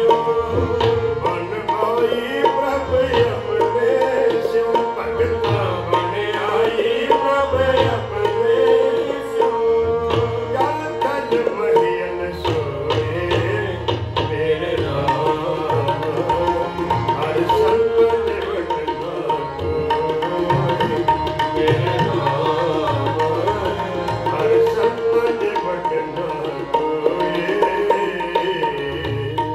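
Sikh kirtan music: a tabla keeps a steady rhythm with deep bass strokes, under the held notes of a harmonium.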